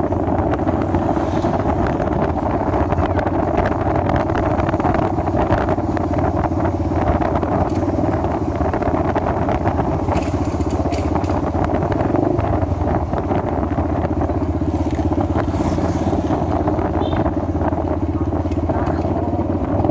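Motorcycle engine running at a steady speed while riding, heard from on the bike.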